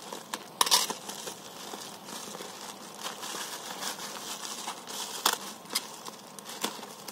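Black plastic parcel wrapping crinkling and crackling as it is cut open with a utility knife and pulled apart by hand, with scattered sharp crackles, the loudest under a second in.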